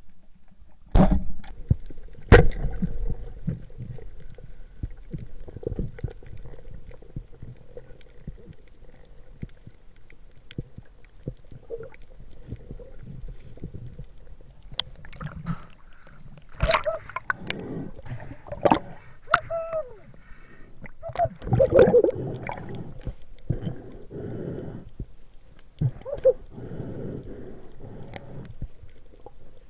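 Underwater spearfishing audio: two sharp cracks, about a second in and just after two seconds, as the speargun is fired at a giant trevally. Then water gurgling and sloshing with scattered knocks, growing busier and splashier in the second half.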